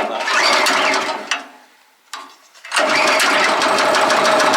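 Wood chipper's petrol engine starting: a first burst of running that dies away after about a second and a half, then it catches near the three-second mark and runs steadily.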